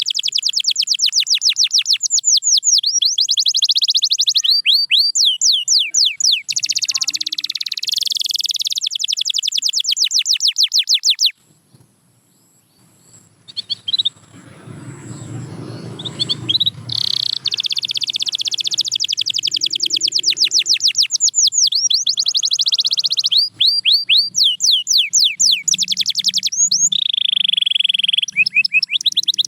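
Domestic canary singing long, fast trills of rapidly repeated high notes. The song breaks off a little over a third of the way through for a few quiet seconds with a low rumble and a few scattered notes, then the trills start again.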